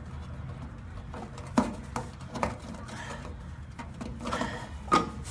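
Hand tools being handled while working on fuel-line fittings: a few scattered sharp metallic clicks and knocks, the loudest near the end, over a low steady hum.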